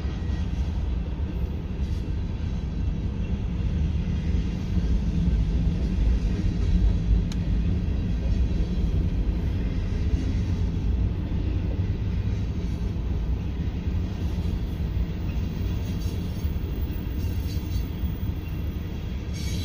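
Freight train cars rolling past at a grade crossing: a steady low rumble and clatter of steel wheels on the rails.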